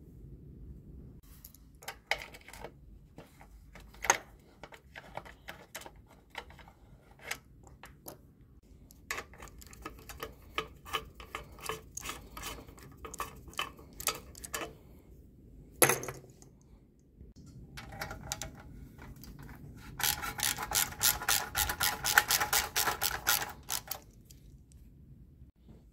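Socket ratchet clicking as bolts are turned on a Briggs & Stratton 5 hp engine's blower housing and cylinder head, with scattered clinks of tools and parts. A single knock comes about sixteen seconds in, and a fast, continuous run of ratcheting clicks, the loudest part, comes near the end.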